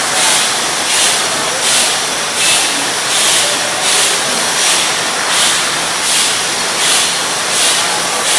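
Beer bottling line running: a steady mechanical din with a hiss that pulses regularly, about three times every two seconds.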